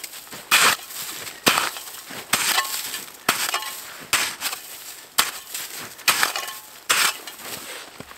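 A small shovel biting into and scraping through crusted snow, a sharp crunch with each scoop, about one a second.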